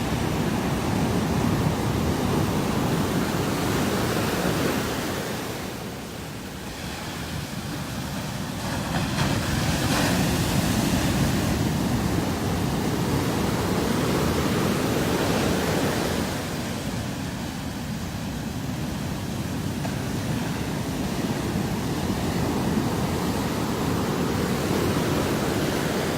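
Ocean surf breaking on a beach, a steady rush that swells and eases as the waves come in, with some wind on the microphone.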